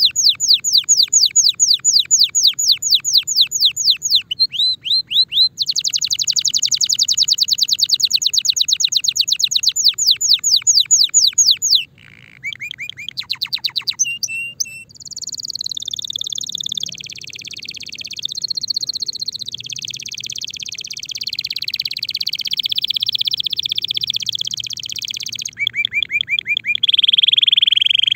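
Timbrado canary singing: fast trills of rapidly repeated downward-sweeping notes, broken briefly about four seconds in, then a long run of rolling, warbling tones from about the middle, and another short trill ending on a steady held note. The song of a male in breeding condition.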